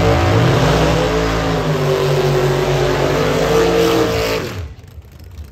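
Drag car engine revving hard during a burnout at the starting line, its pitch rising and falling over the noise of spinning tires. It cuts off abruptly near the end.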